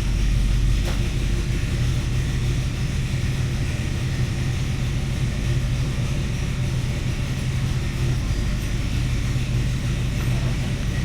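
The Oldsmobile 307 V8 of a 1983 Cutlass Hurst/Olds idling steadily. The owner says it sounds like it wants to die.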